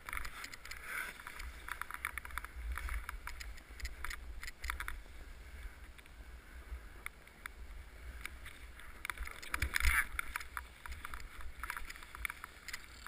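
A snowboard sliding and scraping over snow, with many short scrapes and a louder burst of scraping about ten seconds in. Wind buffets the camera's microphone as a low rumble.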